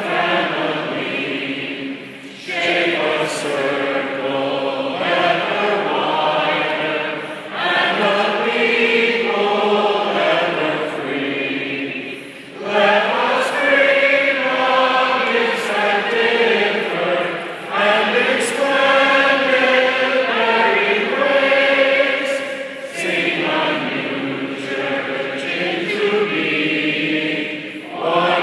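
A large assembly singing a hymn together as a congregation, in sustained phrases about five seconds long with brief breaths between them.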